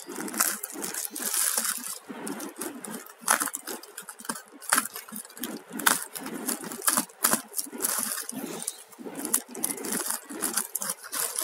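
Plastic mailer bag being cut and pulled open by hand: irregular crinkling and rustling of the plastic, broken by short sharp crackles and snips.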